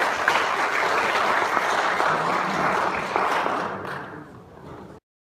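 Audience applauding, dense clapping that thins out over the last couple of seconds and then cuts off suddenly.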